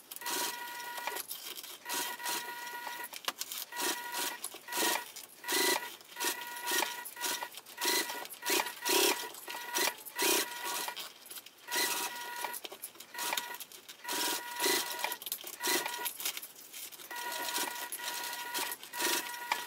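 Juki sewing machine stitching slowly in short starts and stops, its motor whining, mixed with frequent light clicks of plastic sewing clips being pulled off the seam and dropped onto the machine bed.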